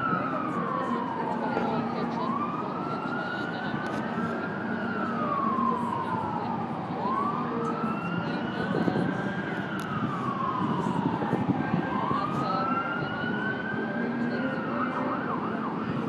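An emergency-vehicle siren on a slow wail, its pitch sliding up and down in about three long sweeps, over steady background noise.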